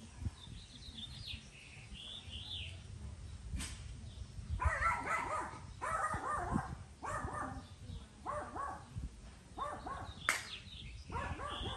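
An animal calling off-picture in a series of short, pitched calls, about one a second, starting about four and a half seconds in. Faint high chirps come before them.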